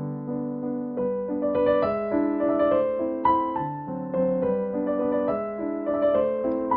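Background piano music, a gentle melody of held notes changing about every half second.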